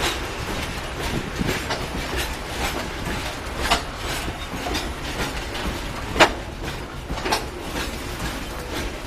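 Loaded iron-ore freight wagons rolling past, their steel wheels rumbling steadily on the rails, with irregular sharp metallic clacks. The loudest clack comes a little after six seconds in.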